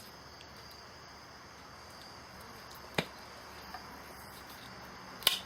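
A faint, steady, high insect chirring, like crickets, with a sharp click about three seconds in and another just before the end.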